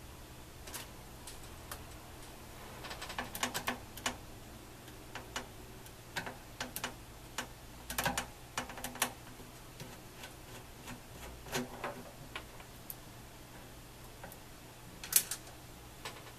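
Screwdriver working the screws that hold a circuit board inside a soldering station's metal case: irregular small metal clicks and ticks in short clusters, the sharpest click near the end.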